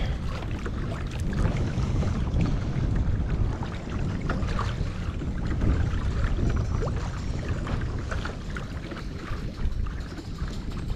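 Wind buffeting the microphone as a low, steady rumble, over water lapping and slapping against the hull of a kayak under way on choppy water, with small scattered splashes and ticks.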